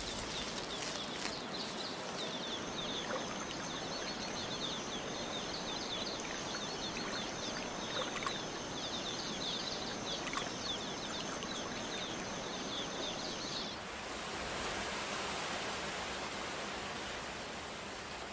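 Rainforest ambience: a steady hiss with a rapid run of small high chirps and a thin, high, steady whine. Both stop about 14 seconds in, leaving a broader, even hiss.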